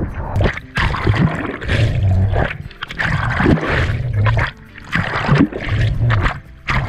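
Water splashing and churning against a swimmer's camera as he swims in a wetsuit, the camera plunging under and out of the sea with his arm strokes. The sound comes in uneven surges with a deep rumble, dropping briefly twice.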